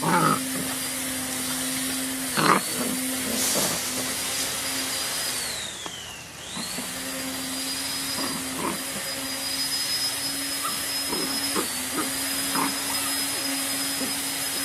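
A motor-driven machine running steadily, a hum and rushing hiss with a thin high whine. About six seconds in, its pitch and level sag briefly, then recover. A few brief dog vocal sounds come over it.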